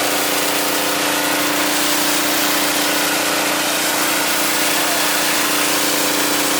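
Engine-driven pressure washer running steadily, its engine's even hum under the constant hiss of the water spray.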